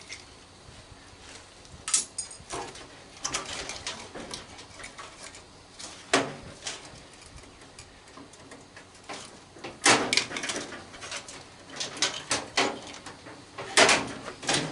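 Irregular clicks, knocks and scrapes of tools and metal parts being worked while an old microwave is taken apart, with sharper knocks about 2, 6, 10 and 14 seconds in.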